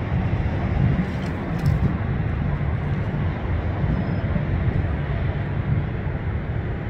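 Jet engines of a Boeing 757 airliner taxiing at idle, a steady low rumble with a noise above it.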